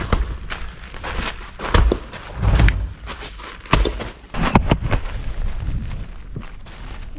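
Footsteps on the ground with scattered sharp knocks and several heavy, dull thuds at irregular intervals.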